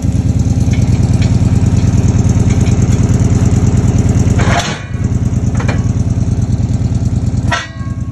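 Ford 351 (5.8 L) V8 engine running steadily with an even pulse. It dips briefly twice, about halfway through and again near the end, each time with a short burst of noise.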